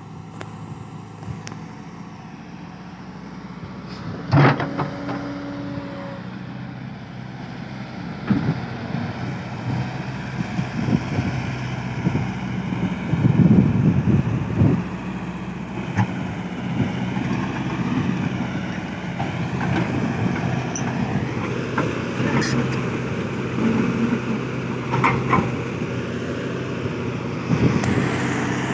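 Volvo EC140 crawler excavator's diesel engine running steadily while it digs and loads sand, with a sharp knock about four seconds in, a louder clattering stretch around the middle and more scattered knocks of the working bucket and hydraulics.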